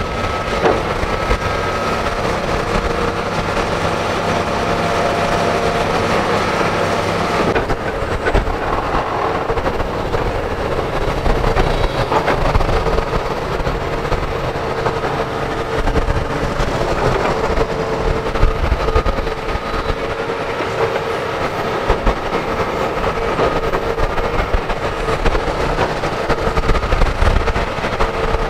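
Hitachi Zaxis 350H hydraulic excavator's diesel engine running under digging load, with a steady whine and occasional clunks as the bucket digs soil and loads it. The sound changes abruptly about eight seconds in.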